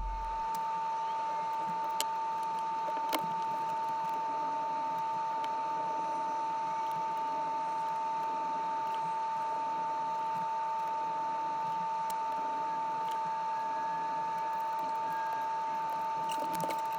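Steady high-pitched whine of a small electric motor running at constant speed, with a couple of faint clicks in the first few seconds.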